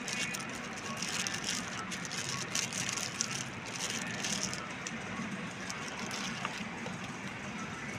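Cordless hair trimmer running with a steady buzz. Crackling and rattling is heard over it in the first half, then eases off.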